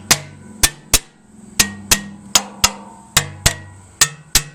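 A hammer tapping on the valve gear of a Case 800 tractor engine with the valve covers off. There are about a dozen sharp metallic taps, mostly in quick pairs, each ringing briefly. It is a check for stuck valves, and none turn out to be stuck.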